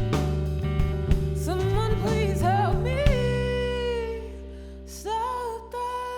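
Soul song performed live: a woman singing over guitar, bass and drums. The drums and bass drop out about three seconds in, leaving a held chord that fades under a long sung note near the end.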